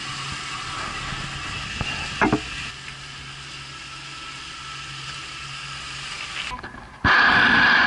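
Boat running with its outboard motor, a faint steady engine hum under a steady hiss of wind and water. There is a single knock a little over two seconds in, and a sudden much louder rushing noise starts near the end.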